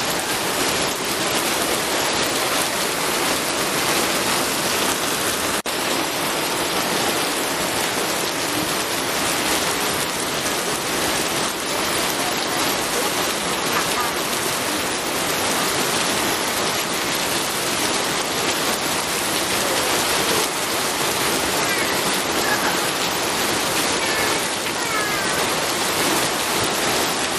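Steady rain falling, an even hiss of drops on surfaces, with a single brief click about five and a half seconds in.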